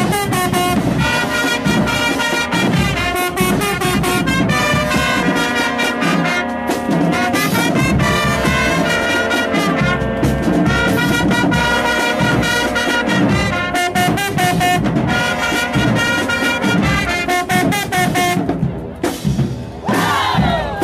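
Marching band playing loudly: trumpets, mellophones and sousaphones over steady drum hits. Near the end the playing breaks off briefly and the horns come back in with sliding notes.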